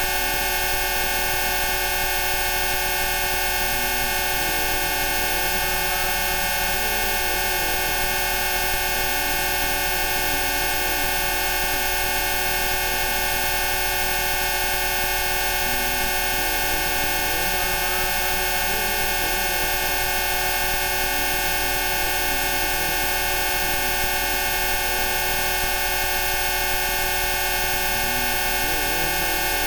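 A dense, unchanging chord of many steady electronic tones sounding together, a blend of Rife frequencies, with a faint wavering sound underneath.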